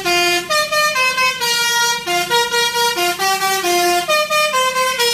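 Bus telolet horn, a multi-tone air horn, playing a quick tune of steady stepping notes, about two to three notes a second, loud and without a break.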